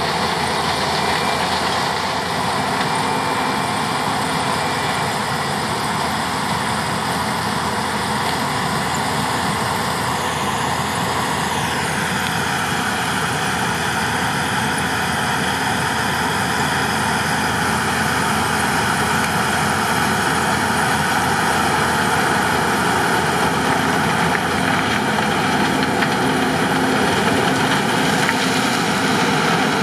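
New Holland CX 7.90 combine harvester running while harvesting corn: a loud, steady drone of engine and threshing machinery. About eleven seconds in, the machine's pitch drops a step and then holds steady.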